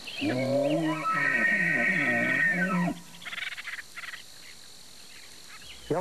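Bull elk bugling, the bull's rutting call: a low bellow rising into a long high whistle, held for about two seconds and cut off about three seconds in, followed by a few quieter grunts.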